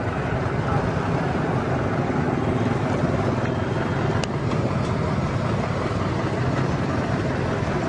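Steady street traffic noise from passing vehicles, with wind rumbling on the microphone. A single short click about four seconds in.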